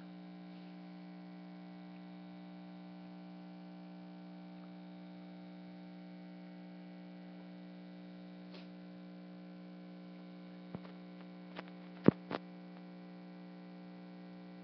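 Steady electrical mains hum, with a few short sharp clicks about eleven to twelve seconds in.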